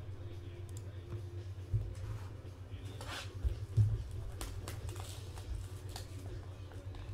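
Hands handling a cardboard 2017 Score NFL trading card box as it is picked up and opened: rustling and scraping of cardboard and wrapping, with a few knocks, the loudest about four seconds in.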